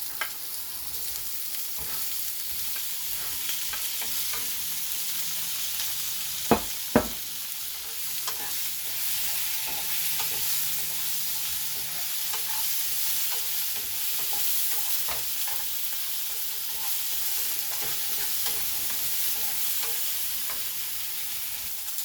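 Diced chicken frying in oil in a pan, sizzling steadily while a utensil stirs and scrapes it, with many small scrapes and taps. About six and a half seconds in come two sharp knocks half a second apart, the loudest sounds here.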